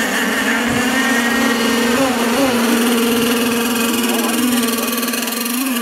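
Radio-controlled racing boat motors running at speed on the water: a steady, even whine with small wobbles in pitch.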